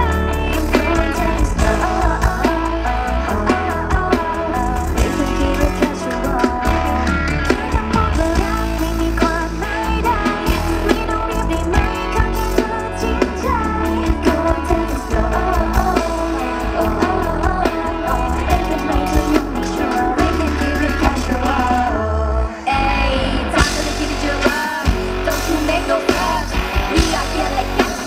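Live band playing a pop-rock song loud, with electric guitars, bass and drums and some singing; the music cuts out briefly about three-quarters of the way through, then comes back.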